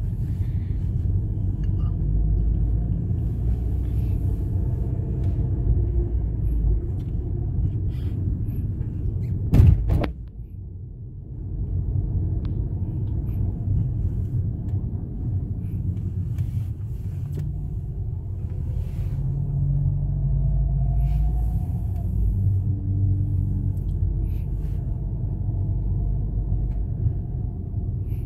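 Car driving, heard from inside the cabin: a low, steady rumble. About ten seconds in there is one sharp knock, after which the rumble briefly drops before picking up again.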